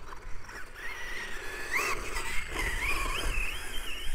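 Brushless electric motor of an XLF F11A 1/10 RC off-road truck whining, its pitch rising and falling as the throttle is worked while it drives through tall grass.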